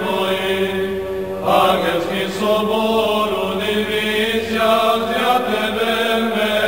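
Serbian Orthodox liturgical chant: voices singing a slow melody over a steady, held drone note.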